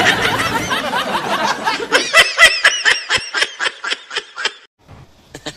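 Laughter: a quick run of ha-ha bursts, about five a second, that stops suddenly near the end.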